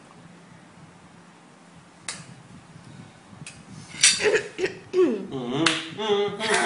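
Room quiet at first with one sharp click about two seconds in. About four seconds in a voice starts, sliding up and down in pitch: garbled singing through a mouthful of pancake and maple syrup.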